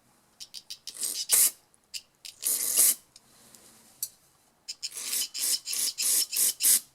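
Thin wire scraping in and out of the small holes of a Honda GX carburetor's emulsion tube, clearing them out. A few separate rasping strokes, then a quicker run of about three strokes a second in the second half.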